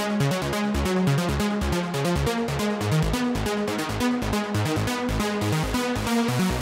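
AcidRain Technology Chainsaw Eurorack supersaw oscillator playing a trance riff: a rapid, even stream of short synth notes over repeating low bass notes.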